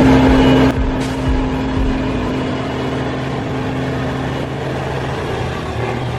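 Heavy vehicle's diesel engine running steadily, dropping abruptly in level less than a second in.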